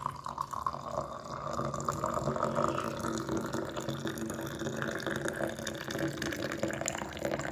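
Hot lemongrass tea poured in a steady stream into a glass mug, splashing continuously as the mug fills.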